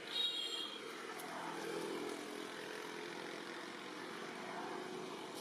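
A baby long-tailed macaque gives a short, high-pitched squeal right at the start, the loudest moment. Under it and after it, a vehicle engine runs steadily in the background.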